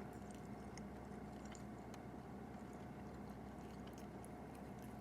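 Faint chewing of a syrup-dipped pancake bite, with small wet mouth clicks, over a steady low hum.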